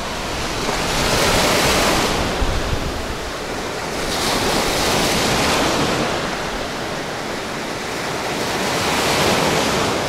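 Storm surf: big waves breaking on the shore, the rush swelling and easing about three times, with wind buffeting the microphone.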